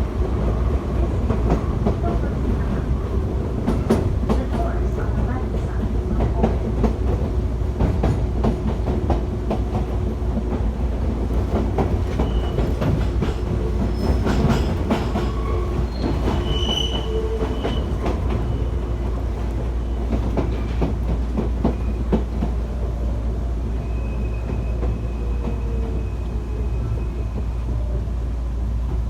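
Electric commuter train heard from inside the carriage while running: steady rumble with wheels clattering over rail joints, and the whine of the VVVF inverter-driven traction motors, which shifts in pitch near the end.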